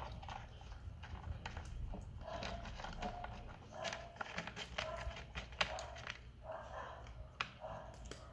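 Two cats, a Siamese and a long-haired kitten, crunching dry kibble from a plastic bowl: a run of quick, irregular crunchy chews and small crackles.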